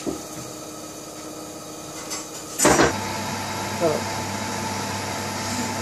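A metal spoon clatters against a metal frying pan once, about two and a half seconds in, while ghee is spooned into the pan. Before it there is only low room tone; after it a steady hum runs on.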